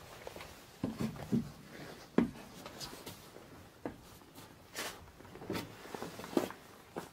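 Irregular footsteps with scattered light knocks and scuffs, someone walking with a handheld camera.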